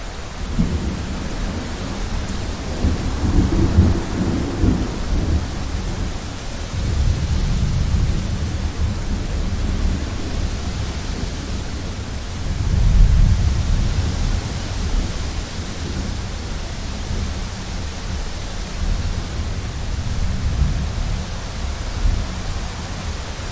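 Thunderstorm: thunder rumbling in several slow waves, the loudest about halfway through, over a steady hiss of rain.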